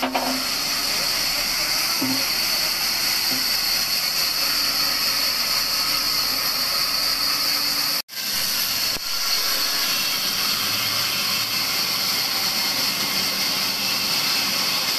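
Large vertical band sawmill running, its blade cutting through a dry wooden log with a steady high hiss. The sound breaks off for a moment about halfway through.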